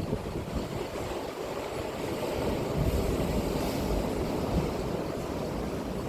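Sea waves breaking and washing up the beach, a steady surf wash that swells with a brighter hiss about three seconds in. Wind rumbles on the microphone underneath.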